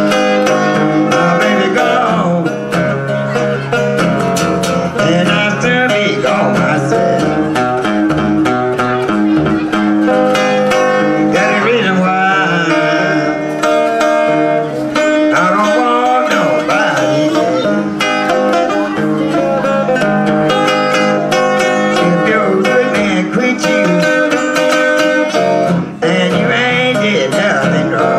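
Acoustic guitar playing country blues in the Piedmont style, with a woman singing into a microphone over it.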